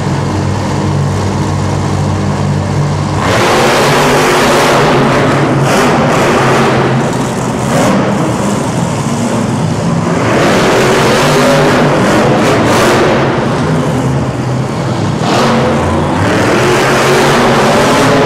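Monster truck engine, a supercharged V8, idling low, then revving hard about three seconds in. It runs loud in repeated surges, easing off briefly twice before building again.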